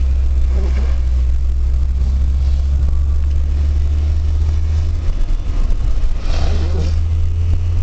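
Steady low rumble of a car driving through snowy streets, with a brief faint voice-like sound about six and a half seconds in.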